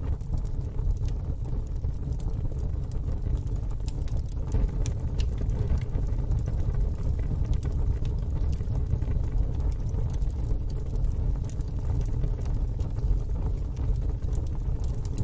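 Pit fire crackling: scattered sharp pops and snaps over a steady low rumble.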